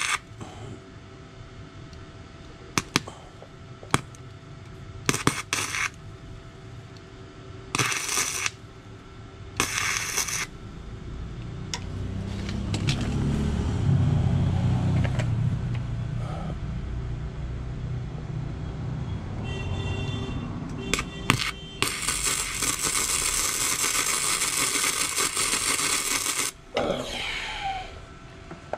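Wire-feed (MIG-type) welder arcing on a motorcycle's steel rear rack. It crackles in about six short bursts over the first ten seconds, then in one longer run of several seconds near the end. A low rumble comes in between.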